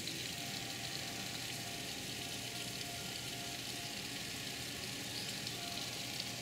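Heavy rain falling steadily on pavement and grass: an even, unbroken hiss.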